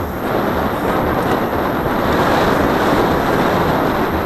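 Steady rushing noise of wind buffeting the camera's microphone on open water, with no clear tones or knocks.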